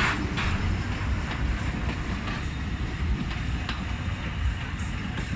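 Alishan Forest Railway narrow-gauge passenger train pulling out of the station and rolling past close by: a steady low rumble with a few sharp clacks of the wheels over the rail joints.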